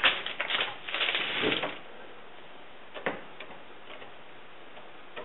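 A brush scraping and dabbing thick black gel coat for about a second and a half, then a few light ticks and taps as it is worked in a foil tray.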